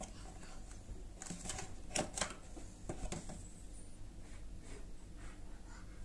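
Handling of a small cardboard box and a gear shift knob: scattered taps, scrapes and rustles, the loudest a pair of sharp clicks about two seconds in, with a steady low hum underneath.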